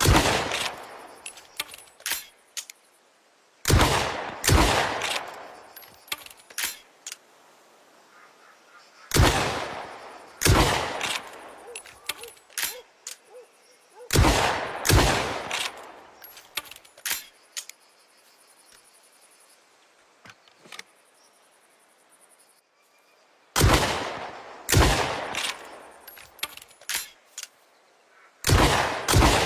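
Sawn-off double-barrel shotgun (lupara) firing, mostly in pairs of shots about a second apart, each shot with a fading echo, and lighter clicks and knocks between the pairs. There are about five pairs, with a long gap before the fourth.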